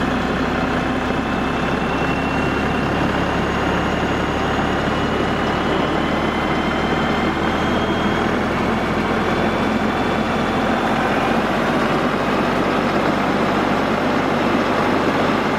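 LS MT240E compact tractor's three-cylinder diesel engine running steadily at PTO speed with the brush hog rotary cutter engaged, a faint high whine over the engine.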